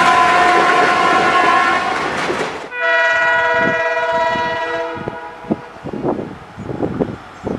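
An Indian Railways WDG3A diesel locomotive sounds its horn over loud train rumble for about two seconds. After a hard cut, a WDG4 diesel locomotive blows its multi-tone horn for about two seconds and fades. Wheels then click over rail joints.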